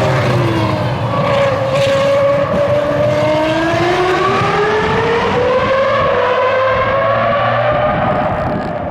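Ferrari F2003-GA Formula 1 car's 3.0-litre V10 at high revs. Its note dips in the first second, then climbs slowly and steadily.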